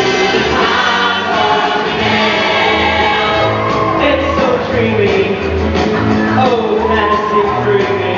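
Music with a choir of many voices singing a gliding melody over an accompaniment with a pulsing bass line.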